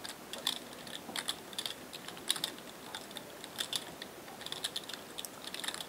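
Computer keyboard typing: irregular key clicks, some in quick runs.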